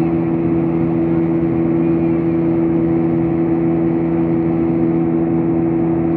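Steady drone of an airliner in cruise flight heard inside the passenger cabin: engine and airflow noise with a steady low hum.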